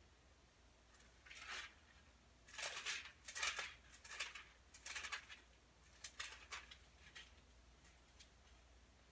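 Thin Bible pages being turned by hand: about half a dozen soft papery rustles, starting about a second in and thinning out to a couple of light ticks near the end.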